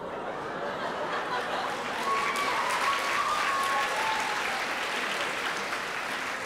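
Audience applauding, building over the first couple of seconds and easing off slightly toward the end.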